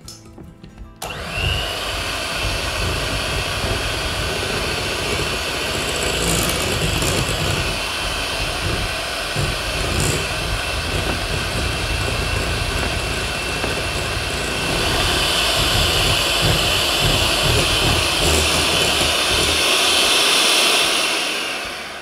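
Electric hand mixer running steadily, its wire beaters whipping a cream mixture in a glass bowl. It starts about a second in, gets louder and brighter about two-thirds of the way through as the mixture thickens, and winds down near the end.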